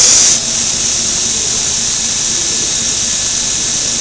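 Cincinnati Milacron Arrow 750 machining center's spindle running at high speed, a steady high-pitched whine. Right at the start there is a brief loud rush as the speed is stepped up from 3,000 RPM, and the whine then settles at a higher pitch.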